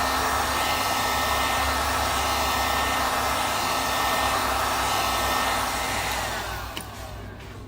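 Electric heat gun blowing steadily while it warms the phone's screen to loosen the glued LCD. About six seconds in it is switched off and its fan winds down with a falling whine, followed by a click.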